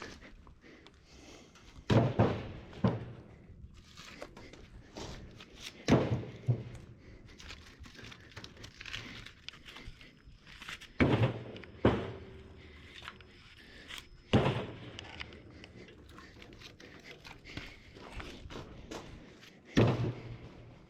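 Chunks of firewood tossed down one after another, landing with heavy wooden thunks. There are eight in all, every few seconds, several coming in pairs under a second apart.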